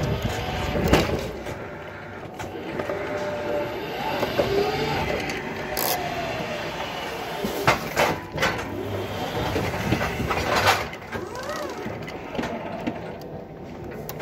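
BT battery-electric reach truck working under joystick control: its motor whine rises and falls in pitch over a steady mechanical hum, with a few sharp clunks in the second half.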